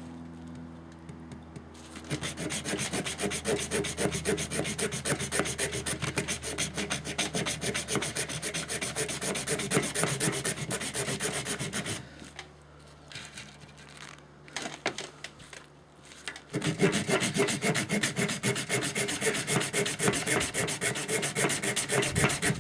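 Leatherman Blast multi-tool saw blade cutting through a coconut shell in rapid, sped-up back-and-forth strokes. The sawing starts about two seconds in, pauses for about four seconds past the middle, then resumes.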